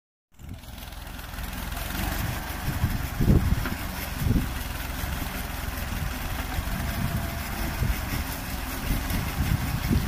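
Massey Ferguson 35 tractor engine running steadily while it powers a tractor-mounted backhoe attachment digging soil, fading in just after the start, with two louder surges about three and four seconds in.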